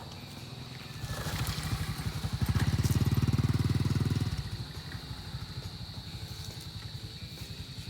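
A small engine running with rapid even pulsing; it grows louder about a second in, is loudest for a couple of seconds, and eases back to a steadier, quieter run about four seconds in.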